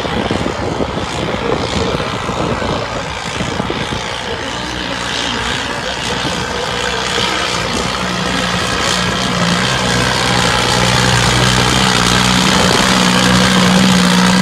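New Holland 3630 tractor's diesel engine working hard under heavy load as it drags a weighted harrow through soil. A steady engine drone settles in about four seconds in and grows louder toward the end as the tractor comes closer.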